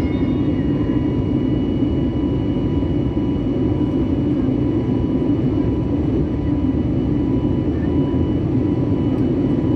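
Airbus A320neo jet engine noise heard inside the cabin during the climb after takeoff: a steady, even rush with a few faint steady high tones above it.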